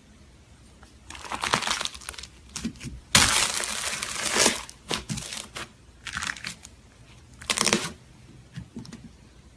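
Slime being worked by hand, heard as a series of short noisy bursts. The longest and loudest starts about three seconds in and lasts about a second and a half.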